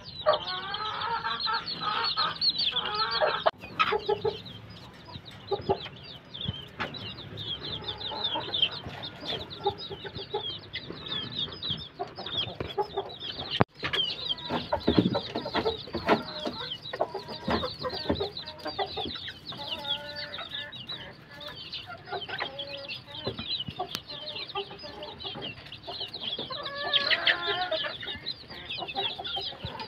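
Backyard chickens: chicks peeping in a constant run of short, high chirps while hens cluck, with a louder hen call near the end.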